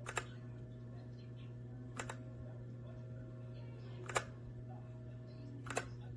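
Redragon K617 mechanical keyboard: single keys pressed one at a time, about every two seconds, four sharp clicks in all, some with a quick second click, over a steady low electrical hum.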